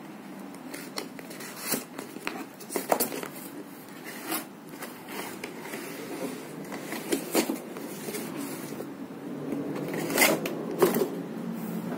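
Cardboard boxes being handled and opened by hand: irregular scrapes, rustles and knocks of cardboard, with a cluster of louder ones near the end.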